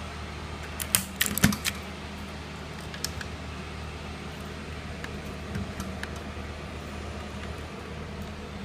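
Sharp plastic clicks and clacks from handling a mechanical keyboard, several close together about a second in and a few scattered later, over a steady low hum.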